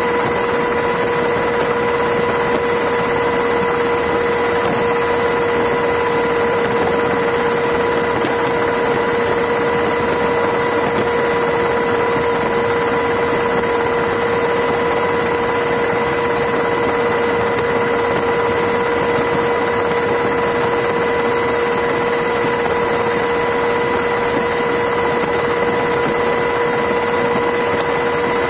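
Steady aircraft cabin noise, most likely a helicopter: a constant engine drone with a steady whine and no rhythm.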